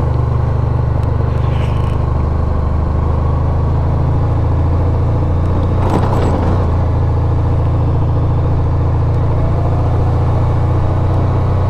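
Honda Crosstourer 1200's V4 engine running steadily as the motorcycle rides along, a low even drone. A short rattle of noise cuts across it about six seconds in.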